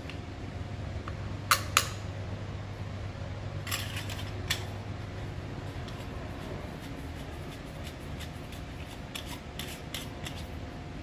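Clicks and ticks from handling a handheld wireless microphone as its body is opened and two AA batteries are fitted: two sharp clicks about a second and a half in, a few more around four seconds, then a run of light ticks, over a steady low hum.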